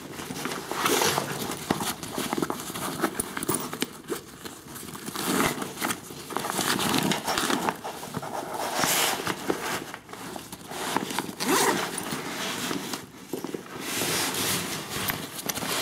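A fabric backpack being handled: its cloth rustling and scraping in irregular bursts, with scattered clicks and knocks from its plastic buckles and webbing straps.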